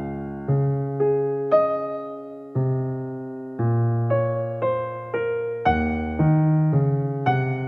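Background music: gentle piano melody over chords, a new note or chord struck every half second to a second, each ringing and fading.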